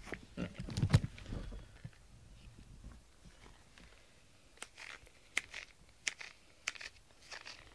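Handling noise as cat hair is cleared from a plastic grooming brush into a glass jar, with a louder knock about a second in. Later, a run of light, sharp clicks less than a second apart.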